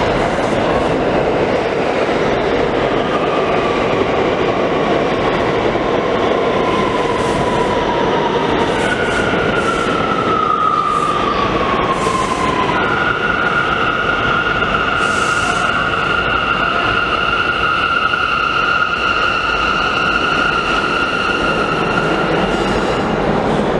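New York City Subway C train pulling into the station and stopping, with a steady rumble of wheels on rails. A high whine falls in pitch about three seconds in, and a louder one falls again around nine seconds as the train slows. From about thirteen seconds a steady high whine is held.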